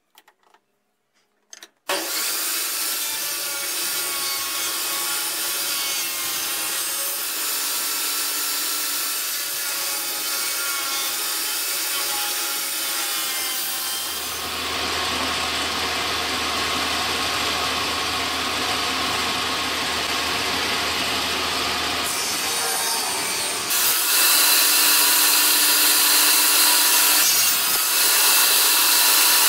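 Benchtop table saw running and ripping hardwood strips into thin molding: a steady whine with many tones over the noise of the blade cutting wood. It starts about two seconds in after a few soft clicks, and gets louder near the end.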